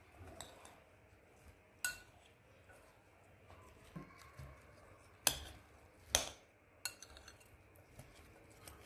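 Metal spoon clinking against a glass bowl while stirring fruit salad: a few scattered sharp clinks, the loudest about five and six seconds in.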